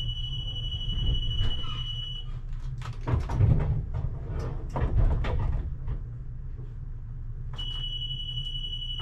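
A steady high electronic warning tone in the cab of a Pragoimex T3R.EV tram cuts off about two seconds in and comes back near the end. In between there are a few seconds of knocking and rattling over a constant low hum.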